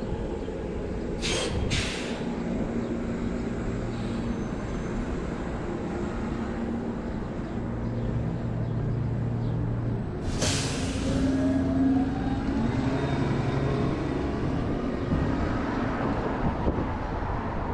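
City bus engine running close by, with two short air hisses about a second in and a longer air-brake hiss about ten seconds in, followed by a slowly rising whine as the bus pulls away.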